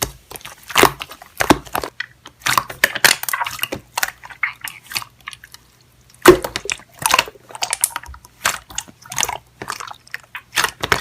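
Slime being squished and worked by hand, giving an irregular run of wet clicks and crackling pops, with a brief lull before a loud snap about six seconds in.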